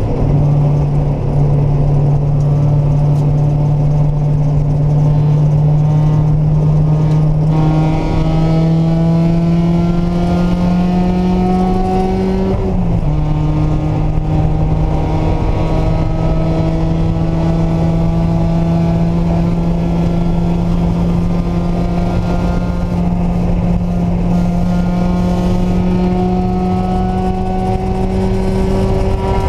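Mazda Miata's four-cylinder engine running hard on a race track. Its pitch holds, then climbs slowly, dips at a quick gear change about thirteen seconds in, and climbs again.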